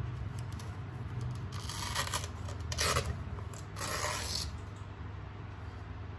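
Packaging being handled: a mop pad and its protective wrap rustling and scraping in three short scuffs about two, three and four seconds in, over a steady low hum.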